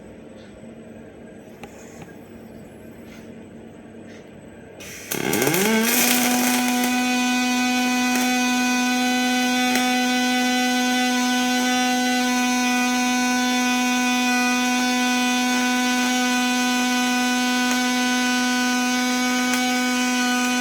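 An electric motor spins up about five seconds in, its whine rising quickly in pitch, then runs on at a steady pitch. Before it starts there is only a low background hum with a few faint clicks.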